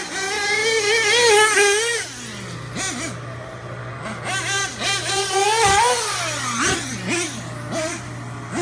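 Dynamite .28 nitro engine in a Losi 8ight-T RC truggy revving up and down as it is driven. Its high whine swings in pitch with quick throttle blips and drops low a few times, around two seconds in and again near six and seven seconds.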